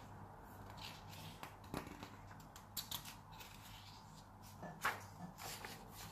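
A paperback picture book being handled and its page turned by hand: faint paper rustles and soft taps, the loudest a little before five seconds in.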